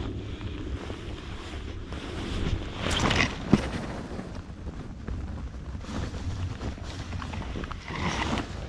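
Wind rumbling on the microphone, with dry grass stems brushing and rustling close by in swells about three seconds in and again near the end, and a single sharp click midway.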